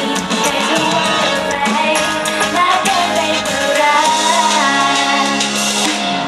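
A live pop-rock band with drums, bass and guitar playing under female vocals sung into microphones, heard through a concert PA system. A held low bass note sounds through the second half.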